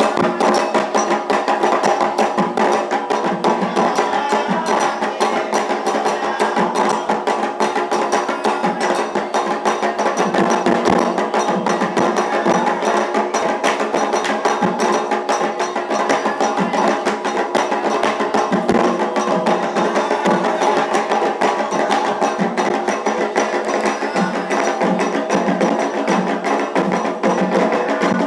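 Candomblé ceremonial music: fast, steady hand percussion with sharp wood-block-like strokes, under voices singing a chant.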